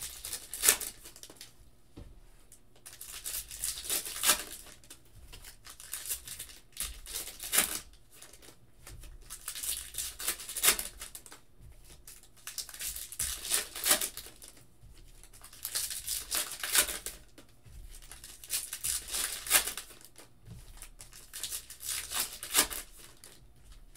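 Foil wrappers of Topps Allen & Ginter Chrome baseball card packs being torn open and crinkled, one pack after another, with a sharp tearing burst about every three seconds.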